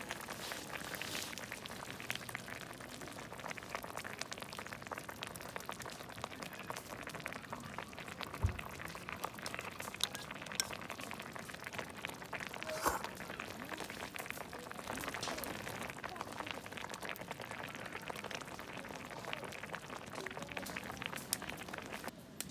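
Sukiyaki broth bubbling at a boil in a pot, a steady crackle of many small pops and spits, with a couple of sharper knocks midway.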